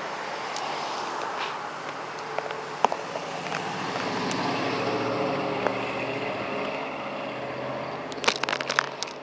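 Wind and road noise while riding a bicycle along a road, with a car passing that swells and fades about midway. A quick cluster of clicks comes near the end.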